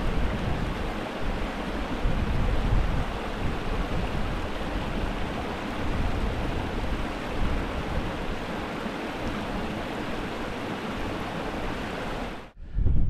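Small mountain stream rushing over rocks, a steady hiss, with gusty wind buffeting the microphone. It cuts off suddenly near the end.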